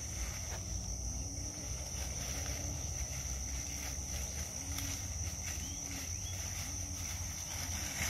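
Insects droning steadily at a high pitch, with short low notes repeating about once a second under it.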